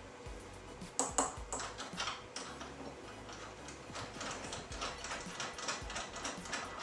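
Small metal hood-catch hardware being handled and fastened by hand: a few sharp metallic taps about a second in, then rapid light clicking.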